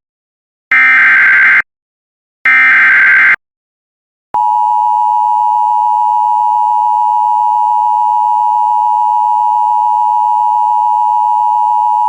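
Emergency Alert System header: two loud digital SAME data bursts about a second long each, then, after a gap of about a second, the steady two-tone EAS attention signal held about eight seconds and cutting off sharply just at the end. It marks the start of a severe thunderstorm warning.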